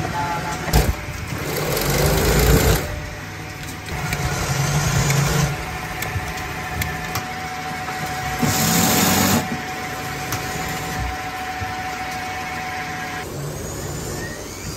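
Small electric workshop machines running, a steady hum with a steady high whine through the middle, broken by three louder bursts of rushing noise.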